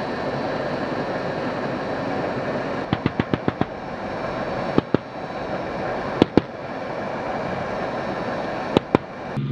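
Small-arms gunfire over the steady running of military vehicle engines: a rapid burst of about six shots about three seconds in, then three pairs of quick shots.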